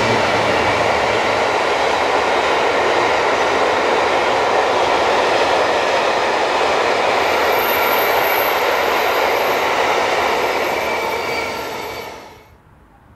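A freight train of bogie tank wagons rolls past at speed, a loud steady rumble and rattle of wheels on rail. The class 66 diesel's low engine hum fades in the first second, and a faint high tone joins in the second half. The noise dies away quickly near the end.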